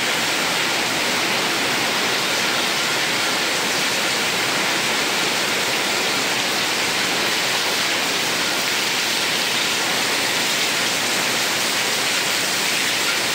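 Heavy downpour: dense rain pouring onto roofs and the ground, a steady, unbroken hiss.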